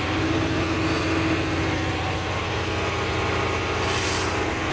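Heavy farm engine and manure spreader with its beaters switched on, running steadily under load, heard from inside the operator's cab.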